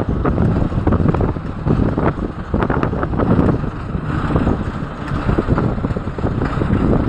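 Strong gusty wind buffeting the microphone, a loud low rush that swells and eases from moment to moment.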